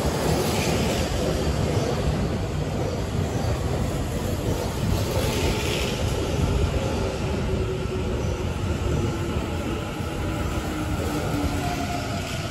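Tobu 50050-series electric commuter train running along the platform: a steady rumble of wheels on rail, with faint tones that slowly fall in pitch in the second half, getting a little quieter toward the end.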